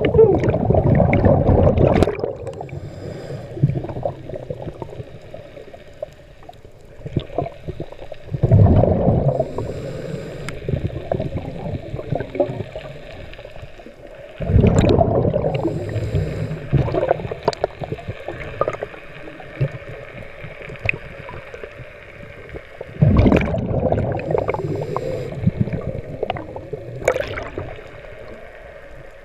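Underwater water noise against a submerged camera: surges of rushing, gurgling water four times, each lasting a second or two, with quieter water noise and faint clicks between.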